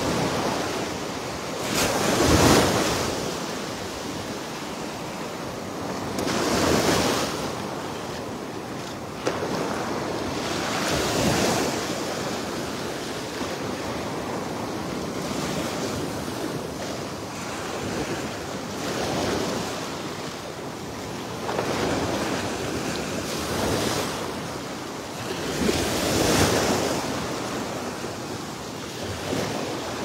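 Small Gulf of Mexico waves breaking and washing up the sand, the surf swelling every four seconds or so, with wind on the microphone.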